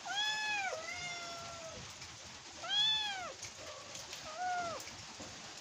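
A kitten meowing four times, each call rising and falling in pitch, the third the loudest: it is calling because it wants to get down from a ledge.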